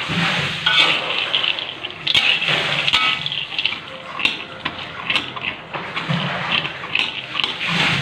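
Raw peanuts being dry-roasted with a little oil in a metal pan, stirred and turned with a metal spatula. The nuts rattle and scrape against the pan in a continuous rustle, with many irregular clicks.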